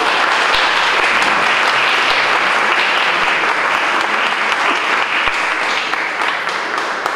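Audience applauding, a steady wash of many hands clapping that eases off slightly near the end.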